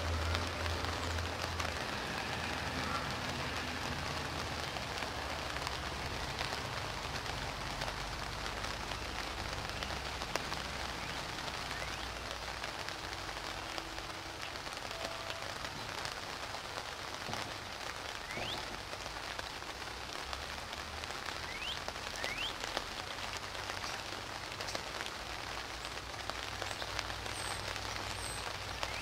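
Steady spring rain falling, an even hiss of drops on leaves and branches.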